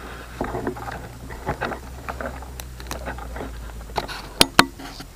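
Footsteps crunching and rustling through dry grass and fallen leaves, uneven and irregular, with two sharp clicks close together about four and a half seconds in.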